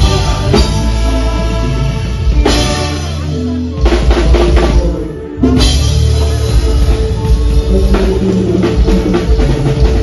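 Live band playing, led by a loud drum kit with kick and snare under keyboard and guitar. About five seconds in the band stops briefly, then comes back in together on a hit.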